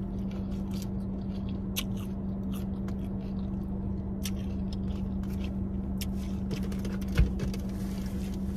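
Close-up chewing of breaded fried chicken bites (Buffalo Blasts), with a few sharp clicks scattered through. A steady low hum runs underneath.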